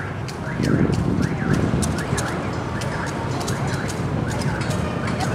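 Wind buffeting the microphone in gusts, under a high chirp that rises and falls, repeated two or three times a second, and scattered faint ticks.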